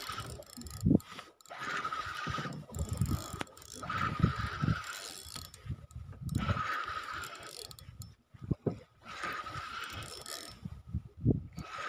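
Spinning reel cranked in repeated spells of about two seconds with short pauses, its gears whirring with a steady whine as a hooked fish is wound in. Low knocks of handling come between the spells.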